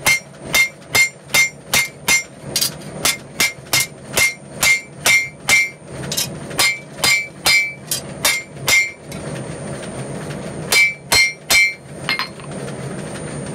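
Hand hammer forging a red-hot steel bar on an anvil: a steady run of ringing blows, about two and a half a second for some nine seconds, then a pause, three more blows and a lighter tap.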